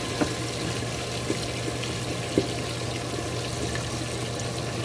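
Pork ribs frying in hot oil: a steady sizzle with a few sharp pops.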